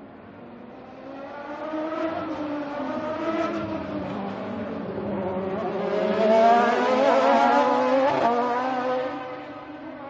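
Race car engines at a racing circuit passing by, their high engine note climbing in pitch as they approach and dropping as they go past. The sound swells about a second in, is loudest about two-thirds of the way through with a sharp fall in pitch, then fades.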